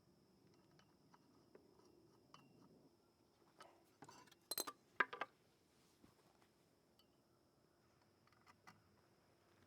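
Quiet handling of metal propeller hardware on an outboard's prop shaft, with a few faint ticks and a quick cluster of sharp metallic clinks about halfway through.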